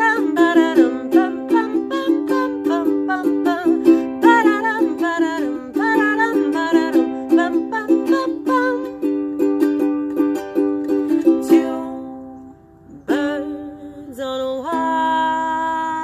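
A woman singing with a strummed ukulele. The strumming stops about two-thirds of the way through and the sound dies away. After a short pause, a voice slides up into one long held note.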